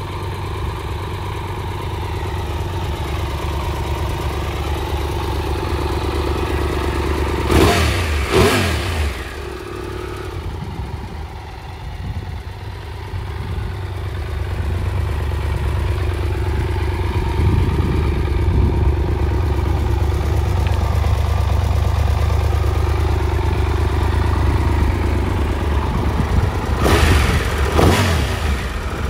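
Triumph Tiger 1200 Rally Explorer's three-cylinder engine idling in neutral, blipped twice in quick succession about eight seconds in and again near the end, the revs rising and falling back to idle each time.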